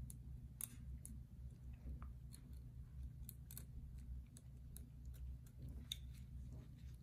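Faint, irregular clicks and scrapes of a Columbia 13/14 universal curette's metal tip working against the upper front teeth of a dental model, over a low steady hum.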